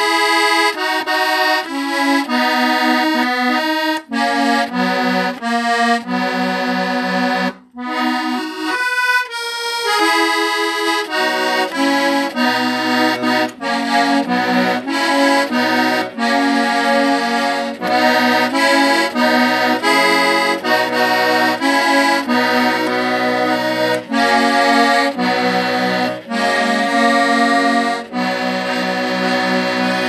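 An accordion (squeeze box) playing a tune, a melody over held chords. It breaks off briefly about a quarter of the way in, and low bass notes join from about a third of the way in.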